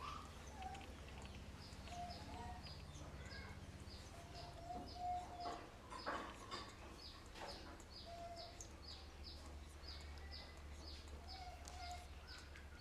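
Faint bird chirping, a short high chirp repeated evenly about two or three times a second, over a low steady hum. A few short soft squeaks and a couple of soft knocks come around the middle.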